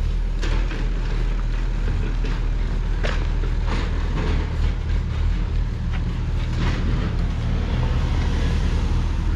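Outdoor street ambience: a steady low rumble with scattered short clicks and knocks through the middle.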